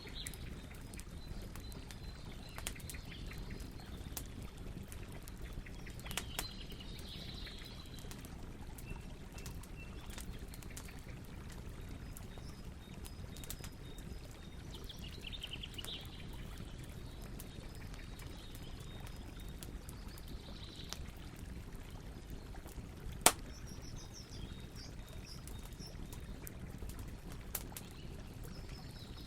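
Campfire burning with a low steady rush and scattered sharp crackles and pops, one much louder pop about 23 seconds in. Birds chirp faintly now and then in the background.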